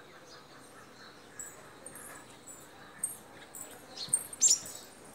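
Small birds chirping: a scatter of short, high chirps, with the loudest, quick downward-sweeping calls about four seconds in.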